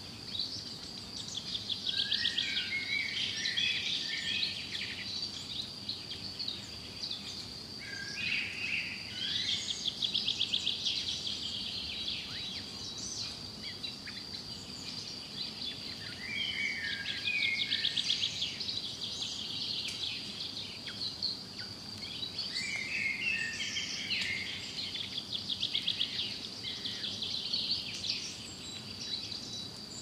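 Birdsong in bursts every several seconds, short stepped chirps and rapid trills, over a steady high-pitched insect drone.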